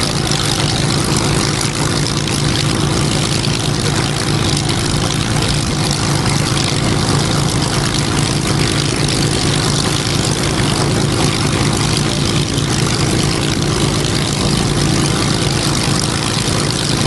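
Hawker Hurricane's Merlin V12 piston engine idling steadily on the ground, propeller turning.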